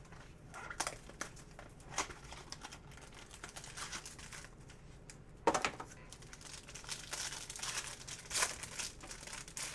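Plastic trading-card packaging crinkling and rustling in bursts as packs are opened and cards are handled. The sharpest, loudest crackle comes about five and a half seconds in.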